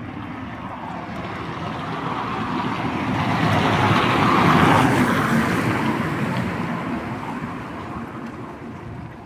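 A car passing by on a wet street: tyre and engine noise swell to a peak about halfway through, then fade away.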